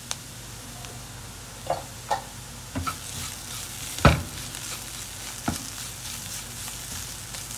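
A wooden spatula stirs and scrapes onions and ground spices frying over a low flame in a nonstick kadai, over a faint, steady sizzle. The spatula knocks against the pan several times, loudest about four seconds in.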